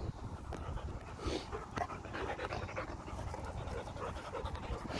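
A dog panting close by, quick breathy puffs after running to fetch a ball.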